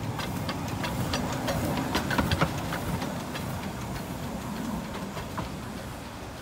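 Narrow-gauge steam locomotive moving slowly with steam hissing, its wheels clicking and knocking over the rails and pointwork in the first couple of seconds, then a steadier hiss and rumble.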